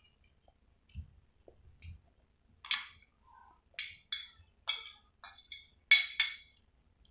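Light clinks and taps against a cut-glass cake stand as chilled mango cubes are pushed off a fork and a small plate onto it: about ten short, irregular knocks, each with a brief glassy ring. The two loudest come near the end.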